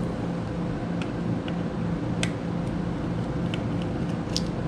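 Scattered light clicks and ticks of small plastic printer parts being handled and set down, a handful of sharp ticks spread over a few seconds, over a steady background hum.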